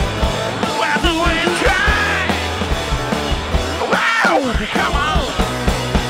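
Rock song with a shouted, singing vocal over a steady driving drum beat.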